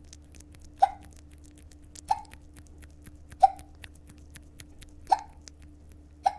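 A woman hiccuping: five short, sharp hiccups, about one every one and a half seconds.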